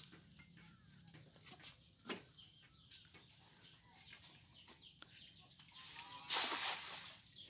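A hand-thrown cast net lands on the pond about six seconds in, its weighted edge hitting the water in a brief splash. This is the loudest sound here; before it there are only a few faint knocks as the net is gathered.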